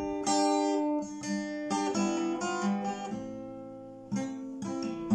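Acoustic guitar played slowly, a chord struck about once a second and left to ring, changing chords a few times: the instrumental introduction before the singing comes in.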